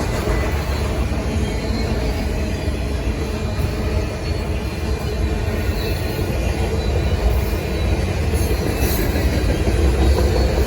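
Union Pacific manifest freight train passing close by, a steady loud rumble of wheels rolling on the rails.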